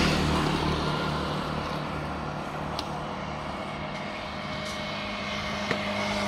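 Passing motor traffic: a steady engine hum that eases off after the start and swells again near the end. There are a couple of faint clicks.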